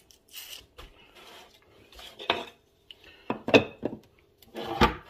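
Kitchenware being handled on a counter and glass-top stove: irregular knocks, clinks and rubbing, with a few sharper knocks, the loudest near the end.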